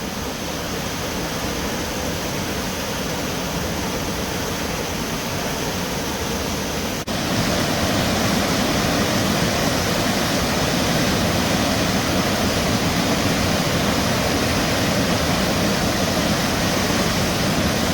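Steady rush of a flood-swollen river pouring over and above a waterfall. About seven seconds in it breaks off briefly and comes back louder.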